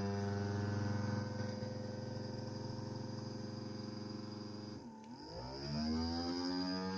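Small electric motor of a DIY generator rig running with a steady hum. About five seconds in it slows sharply, dropping in pitch, then speeds back up to its running pitch.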